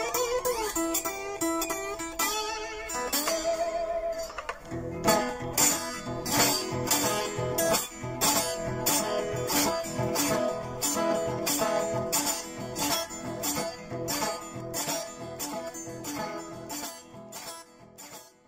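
Downhome blues guitar music with no singing: a wavering melodic line for the first few seconds, then steady rhythmic picking with a beat about twice a second, fading out near the end.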